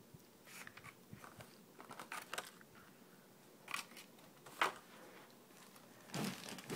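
Plastic lure packaging being handled: faint scattered clicks and crinkles, two sharper clicks mid-way, and louder crinkling near the end.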